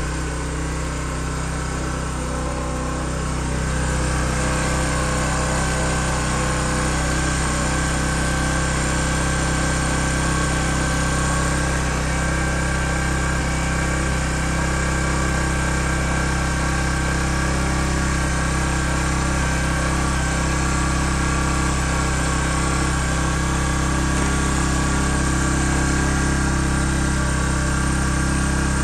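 Bajaj CT BS6 motorcycle's single-cylinder engine idling steadily, growing a little louder about three and a half seconds in. It is the raised idle such a bike shows after a cold morning start.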